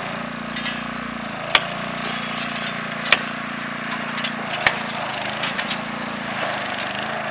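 Sledgehammer blows ringing on steel at a freshly poured thermite rail weld, knocking away the broken refractory mould: three sharp strikes about a second and a half apart, then a few lighter knocks. A small petrol engine on the trackside weld-trimming unit runs steadily underneath.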